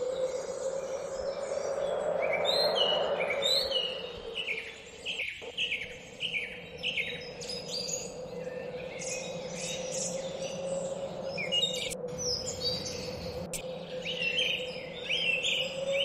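Birds chirping: many short, quick falling chirps overlapping one another, over a steady low hum.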